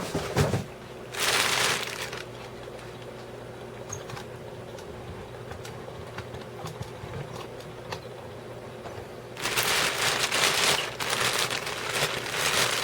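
Packaging rustling and crinkling as a bookshelf speaker is unpacked from its box. There is a knock at the start, a short rustle a second in, a quiet stretch, then longer rustling with small clicks for the last few seconds.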